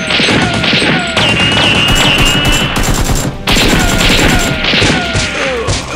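Rapid automatic gunfire sound effects dubbed over a Nerf blaster fight, with repeated whistles falling in pitch like bullets whizzing past, over background music. The firing breaks off briefly about three and a half seconds in, then resumes.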